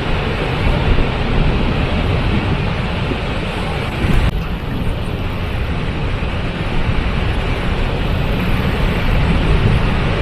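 Waterfall: a steady, loud rush of falling water, heaviest in the low end.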